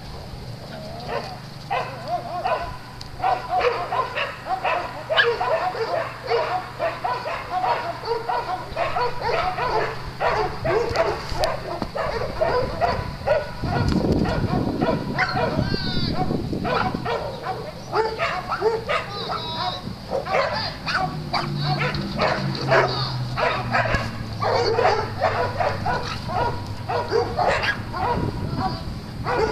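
A pack of small dogs barking and yapping over one another in a steady, overlapping chorus, with a low rumble for a few seconds about halfway through.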